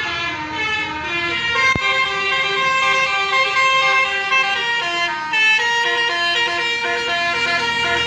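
A bus telolet horn, a set of electric air-horn trumpets, plays a melody. The notes step up and down every half second or so, with several tones sounding at once, continuously for about eight seconds. It is the Palala bus's new telolet horn.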